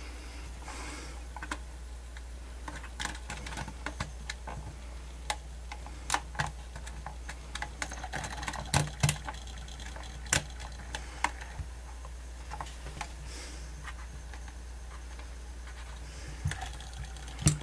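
Irregular clicks and ticks from a Sony D-142CK Discman portable CD player being handled, its plastic buttons pressed and case gripped, over a steady low hum. The player is skipping while it plays the disc.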